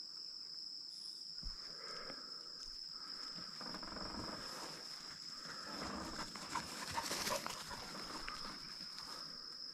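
Cattle lowing faintly, drawn-out calls building through the middle of the stretch and loudest about seven seconds in. A steady high cricket trill runs underneath.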